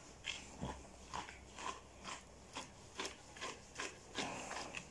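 Slicker brush raking through a matted, curly dog coat in short repeated strokes, a scratchy brushing sound about twice a second as the knots are worked loose.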